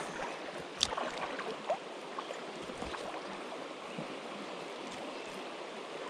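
River water rushing steadily, with a couple of light clicks in the first two seconds.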